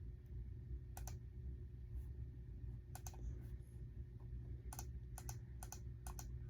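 Keyboard keys clicking: a few separate presses, then a quicker run of clicks near the end, over a steady low hum.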